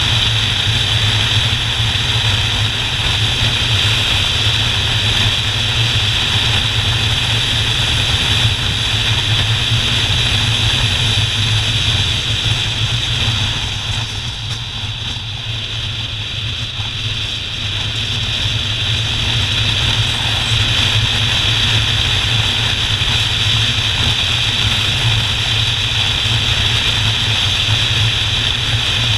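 Motorcycle engine running steadily while riding at road speed, with wind rushing past the bike. The sound drops for a few seconds about halfway through, then comes back to its former level.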